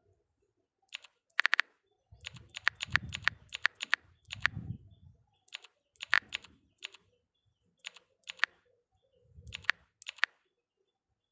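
Irregular sharp clicks and taps, some in quick runs of three or four, with low dull thumps of handling between them.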